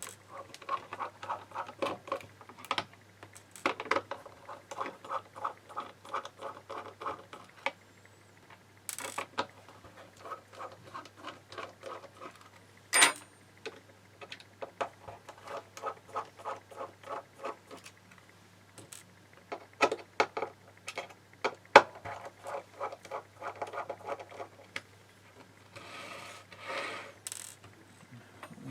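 A screwdriver undoing the small casing screws of a 2.5-inch laptop hard drive, clicking quickly and evenly in runs of a few seconds. Between the runs come a few sharper knocks as screws and tools are set down.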